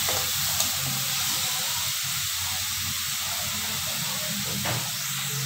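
Shredded cabbage and onion sizzling in a wok over high heat, a steady hiss as the momo filling is sautéed.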